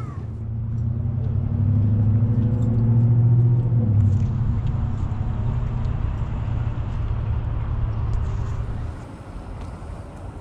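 Low engine hum of a passing motor vehicle, building to its loudest a few seconds in and then fading away about nine seconds in.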